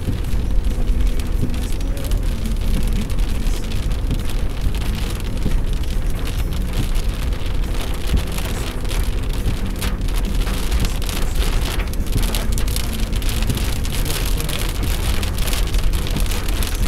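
Steady rain falling, with many short drop hits over a constant low rumble underneath.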